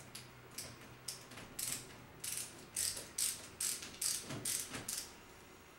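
Screwdriver tightening the terminal screw on a newly installed circuit breaker: a run of short clicking strokes, about two or three a second, getting louder after about two seconds.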